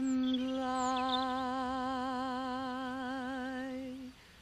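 A woman's solo voice, unaccompanied, holding the long closing note of a hymn with a steady vibrato. The note ends about four seconds in.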